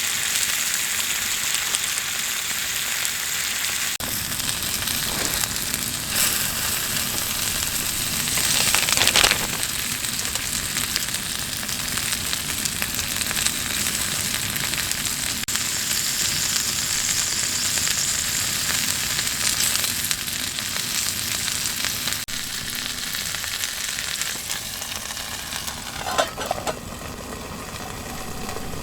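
Food sizzling as it fries in a pan, a steady hiss, with a louder stirring or scraping sound about nine seconds in and again near the end.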